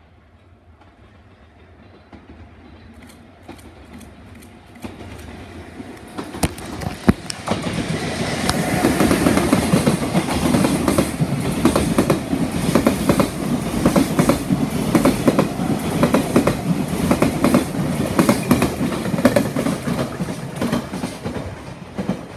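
Container freight train hauled by an electric locomotive approaching and passing. A rumble builds over the first several seconds, then a loud, steady clatter of wheels over rail joints runs as the wagons go by, easing off near the end as the train moves away.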